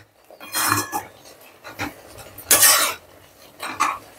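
A flat metal spatula scraping and stirring grated coconut through bubbling sugar syrup in a steel pan. It comes as several separate strokes, the loudest about two and a half seconds in.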